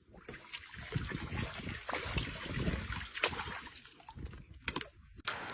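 Irregular splashing and trickling of water, with short uneven spurts and small clicks.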